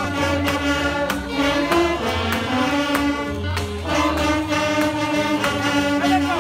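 Saxophone ensemble with a trombone playing live, several held notes sounding together in harmony over a low bass line and a steady beat.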